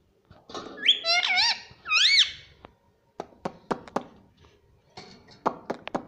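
Indian ringneck parakeet giving a few short, squeaky high-pitched calls that rise and fall, the loudest about two seconds in, followed by a run of sharp clicks over the last three seconds.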